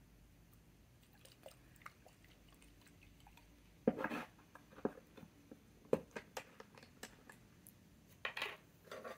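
Ink bottle being handled on a desk: a string of light clicks and knocks, the loudest about four seconds in, as the bottle is set on a wooden stand, and a short scraping sound near the end as its cap is unscrewed.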